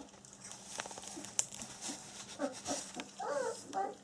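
A litter of 20-day-old black German Shepherd puppies eating together from one bowl: scattered smacking and lapping clicks, then short squeaks and whimpers from about halfway through.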